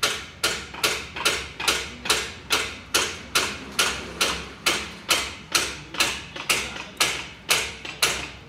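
Large hand-spun potter's wheel being driven round with a stick, giving a steady train of sharp clacks, about two and a half a second.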